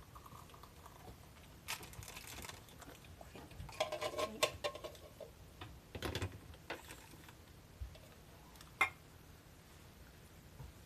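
Hot water poured from a kettle into cups, then ceramic and glass cups clinking briefly with a short ring, a knock and a sharp click as they and the kettle are handled and set down.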